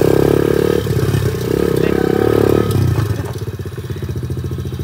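125cc dirt bike's single-cylinder engine running under throttle, then dropping back to a quieter, even putter about three seconds in.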